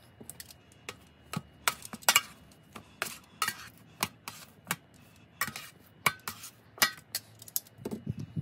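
A seasoning shaker shaken over steaks in a stainless steel tray, with metal tongs turning the steaks against the tray: a run of short, sharp rattles and clinks, about three a second, with a few duller knocks near the end.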